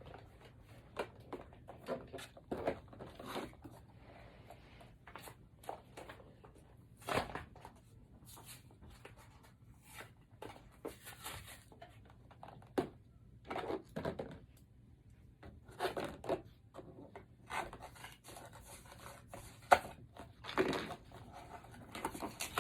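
Toy blind-box packaging being torn open and handled: irregular bursts of tearing, crinkling and rustling, with a few louder rips.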